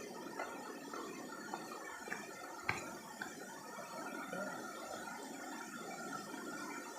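Steady rushing of a waterfall, with a few faint clicks.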